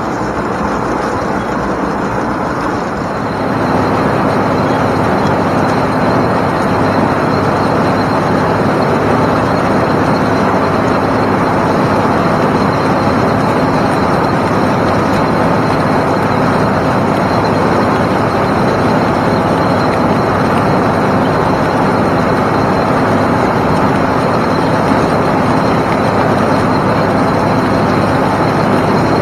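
IH 1486 tractor's six-cylinder turbo diesel pulling a two-row ear corn picker, heard from inside the cab: a steady, dense drone of engine and picker under load. It gets louder about three and a half seconds in, then holds steady.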